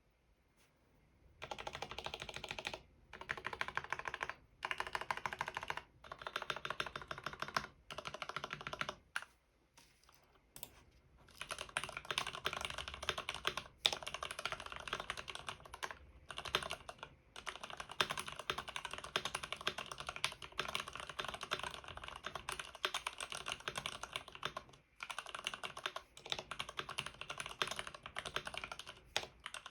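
Arkon FX2 mechanical keyboard with fully lubed Cherry MX Red linear switches (Krytox 205/105 mix) and lubed stabilizers, being typed on quickly. Keystrokes come in short bursts with brief pauses at first, then, after a short break about ten seconds in, run as steady, fast typing.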